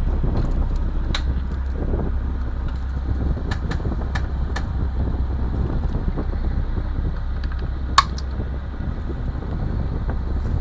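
A steady low hum underneath a handful of short, sharp clicks and taps as thin wooden deck-plank strips are cut and handled at the bench. The loudest click comes about eight seconds in.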